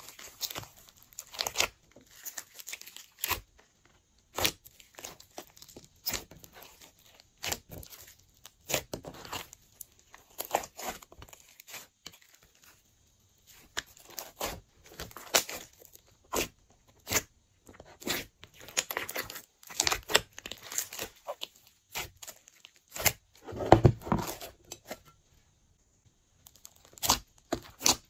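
Hands squeezing, stretching and kneading glossy slime mixed with chunks of clay and foam, giving a dense, irregular run of sticky crackles, pops and snaps.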